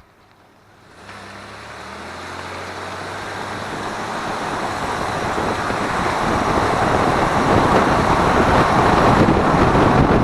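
Toyota 4Runner driving and picking up speed: engine and road noise come in about a second in and grow steadily louder. No transmission whine is heard, the sign that the newly installed remanufactured transmission is running quiet.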